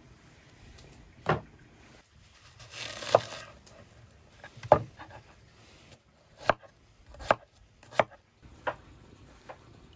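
A hammered-blade kitchen knife cutting through a peeled red onion and knocking on a wooden cutting board. Three single cuts come a couple of seconds apart, then about halfway through the strokes settle into a steady slicing rhythm of roughly one knock every three-quarters of a second.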